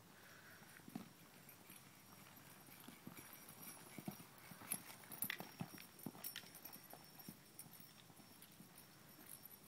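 Hoofbeats of a gray Quarter Horse filly loping under a rider on soft arena dirt. The muffled footfalls grow loudest around the middle as she passes close, then fade as she moves off.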